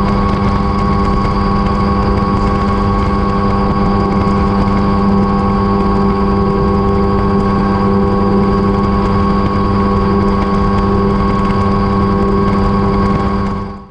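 Mosquito XE285 ultralight helicopter in cruising flight, heard from inside the cockpit: a steady engine and rotor drone with a strong low hum. It fades out near the end.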